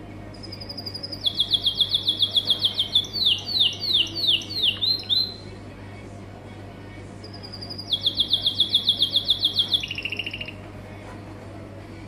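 Pet canary singing two phrases of rapid trills built from quickly repeated high notes; the first phrase ends in a run of falling sweeps, and the second drops to a lower trill before it stops.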